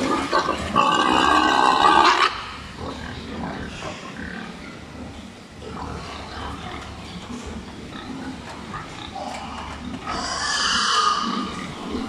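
Domestic pigs in a crowded pen. A loud, harsh squeal comes about a second in and lasts about a second and a half. Quieter grunting follows, and a second loud squeal comes near the end.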